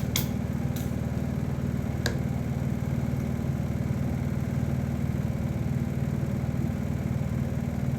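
A steady low hum that does not change, with a few light clicks in the first two seconds.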